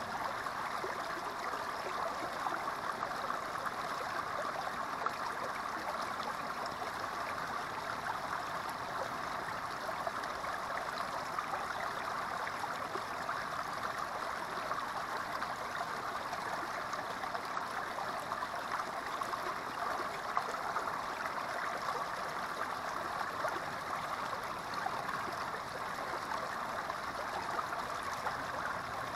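Small creek spilling over a low rock step into a shallow pool: the steady, even rush of running water with fine splashing.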